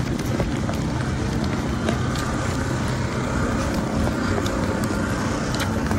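Outdoor market ambience with wind rumbling on the microphone: a steady low rumble with a faint hum and scattered faint clicks and knocks.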